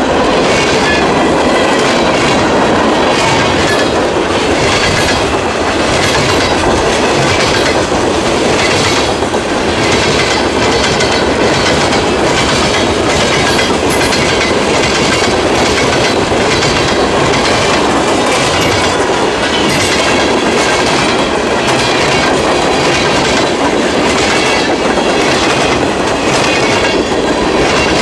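Norfolk Southern freight train's covered hoppers and boxcars rolling past close by. Steel wheels make a steady, loud rumble on the rails, with a repeated clickety-clack as the wheel sets cross the rail joints.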